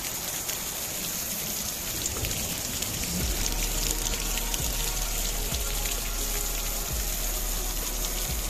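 Hail and rain coming down hard on a paved yard: a dense steady patter dotted with many sharp ticks of hailstones striking the ground. About three seconds in, a low rumble joins.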